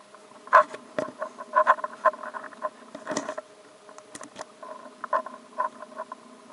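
Hermit crab in a large conch shell crawling on wooden deck boards: irregular light clicks and knocks of its legs and shell against the wood, with a louder scrape about three seconds in. A faint steady hum runs underneath.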